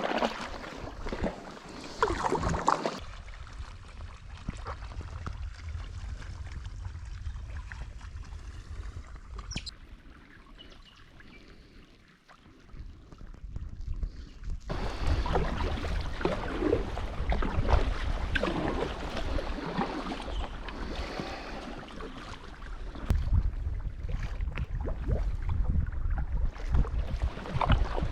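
Kayak paddling: paddle blades dipping and splashing in the water, with wind rumbling on the microphone. It is quieter for several seconds partway through, then the splashing and wind pick up again.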